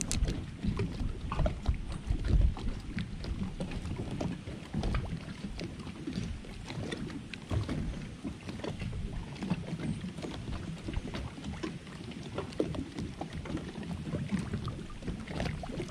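Water lapping and slapping against the hull of a small fishing boat, an uneven low wash broken by many small splashes and knocks.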